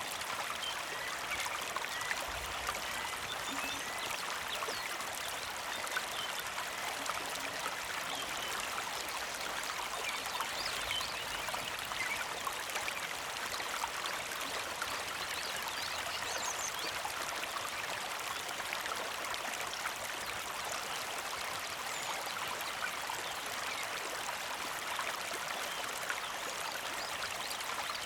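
Small creek flowing and trickling over rocks in a steady, unbroken rush of water.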